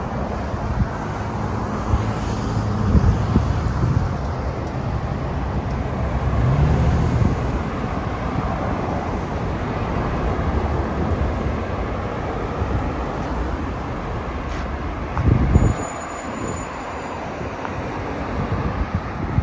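Road traffic on a multi-lane road: a steady wash of cars and SUVs passing, with engine hum that rises as one vehicle speeds up about six seconds in, and a brief low rumble about fifteen seconds in.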